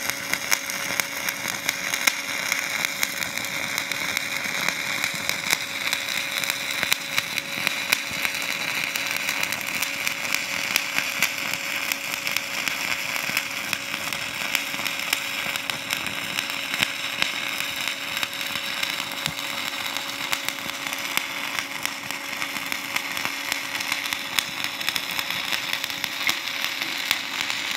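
Stick (SMAW) welding arc crackling and sputtering steadily as a fillet weld is run in the flat position. The rod is running at about 130 amps, a little hot, which makes it spatter more. A faint steady hum sits underneath.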